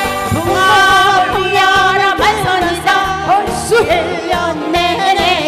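A woman sings a Korean trot song live into a microphone, her voice bending and wavering, over a backing track with a steady beat.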